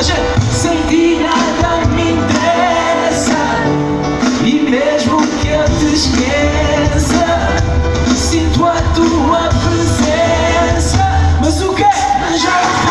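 Live pop-rock band music amplified through a PA, with drums keeping a steady beat under a sung melody.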